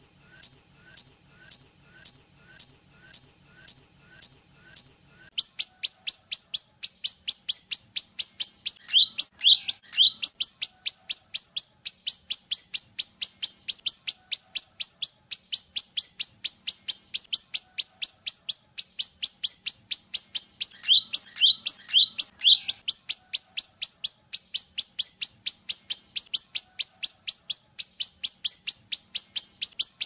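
Grosbeak starling (rio-rio) calling in sharp, high, down-slurred notes. They come about two a second at first, then from about five seconds in a faster, steady run of about three a second, with short lower notes mixed in twice.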